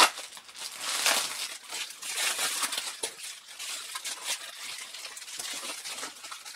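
Plastic mailer packaging rustling and crinkling in bursts as it is pulled open by hand, with a sharp click right at the start.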